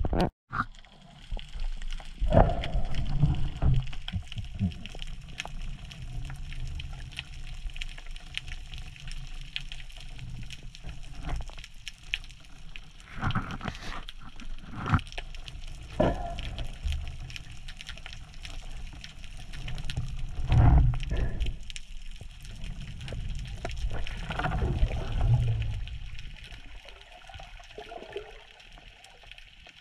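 Underwater sound through a GoPro's waterproof housing: muffled water rush and low rumbles that swell a couple of seconds in, around twenty seconds in and again about twenty-five seconds in, with scattered sharp clicks. It fades away near the end.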